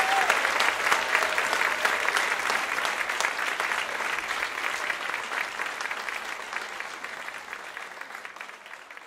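Audience applauding, dense clapping that gradually fades away toward the end.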